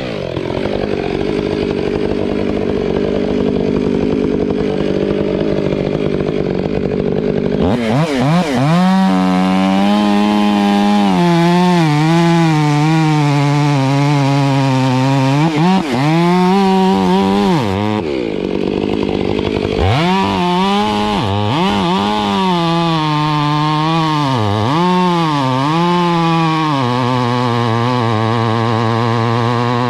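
Chainsaw running at high revs and cutting wood. Its pitch wavers and dips again and again as the chain bites and the saw bogs under load, with rougher, steadier stretches at the start and briefly just past the middle.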